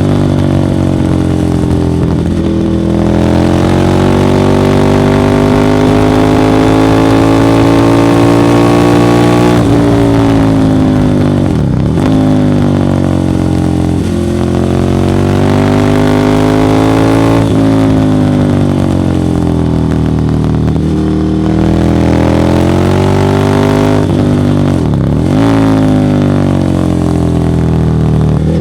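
Ducati Monster 1100 EVO's air-cooled L-twin engine through a Termignoni exhaust, running continuously under load, its pitch climbing slowly for several seconds at a time and then dropping sharply, twice with a quick dip and recovery about twelve and twenty-five seconds in.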